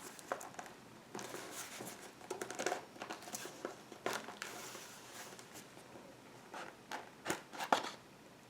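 Packaging being handled by hand: intermittent rustling and light clicks, with two sharper clicks near the end.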